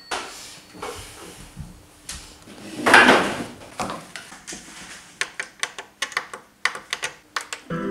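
Handling noises: a loud rustling swell about three seconds in, then a quick irregular run of sharp clicks and knocks, like cupboard doors and objects being moved about.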